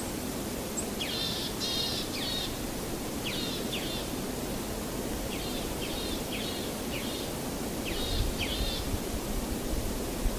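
Small birds chirping in short clusters of quick high calls every second or two, over a steady background hiss.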